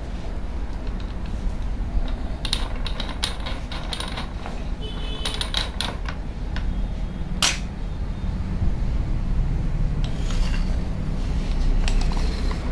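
Drill chuck key turning in a keyed drill chuck to loosen it, seat a drill bit and tighten it: scattered metallic clicks and clinks in several short bunches, the sharpest about halfway through.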